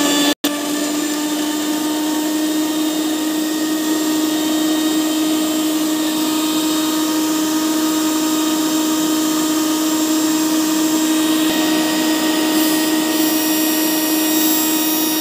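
Electric mixer grinder's motor running steadily at full speed with a strong steady whine, dry-grinding peeled garlic cloves into paste without water. The sound drops out for a split second about half a second in.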